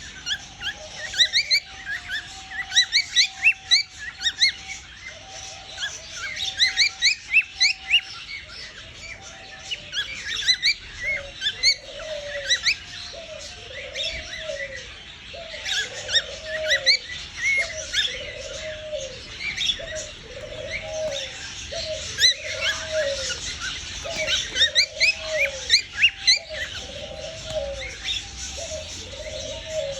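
Cockatiel humming: a low, soft note that rises and falls in an arch, repeated about once a second through most of the stretch. Many quick, high chirps from birds go on throughout.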